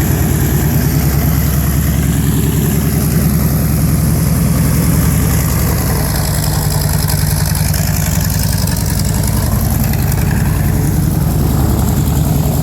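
Grumman TBF Avenger's Wright R-2600 radial engine running steadily at ground idle, propeller turning, with an even low pulsing throb.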